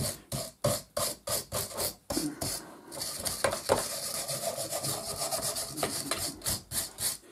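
Wire brush scrubbed back and forth over the old W.R. Fox No.3B mitre trimmer, knocking off loose debris: scratchy strokes about three a second, becoming quicker and more continuous after about three seconds.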